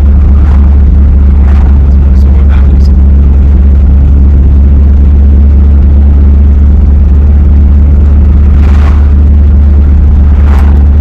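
Volvo 144 E driving at a steady road speed, heard from inside the cabin: a loud, unchanging low drone of engine and road noise.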